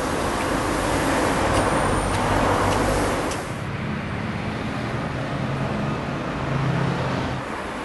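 Street traffic: a vehicle passes, loudest two to three seconds in, then fades to a lower steady engine hum that drops away near the end.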